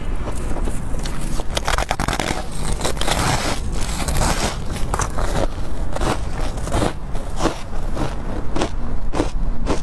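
Biting into and chewing crunchy ice: a dense run of crackling crunches, then slower separate crunches about two or three a second, over a steady low rumble.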